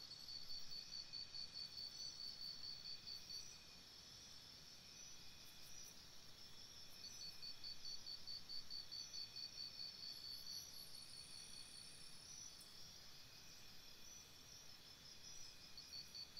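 Faint insects chirring: a high, rapidly pulsed trill that runs for a few seconds, stops, and starts again twice, over a steady faint high hum.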